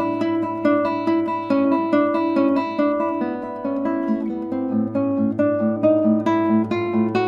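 Classical nylon-string guitar played fingerstyle: a steady stream of single plucked notes, several a second, over a sustained low bass note.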